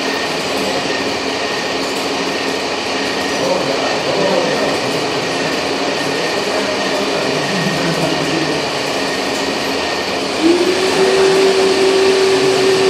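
Radio-controlled tractor and excavator models running with a steady mechanical hum and rumble. About ten seconds in, a motor whine sets in, rising briefly and then holding at one pitch.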